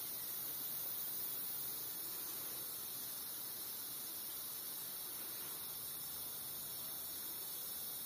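Steady, high-pitched drone of a rainforest insect chorus, unbroken throughout.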